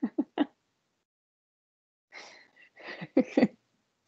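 Short bursts of laughter and breathy sounds over a video call. There are three quick bursts at the start and two more about three seconds in, with dead silence between them.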